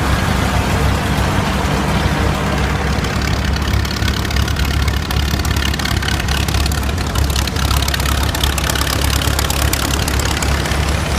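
Vintage tractor engine idling steadily.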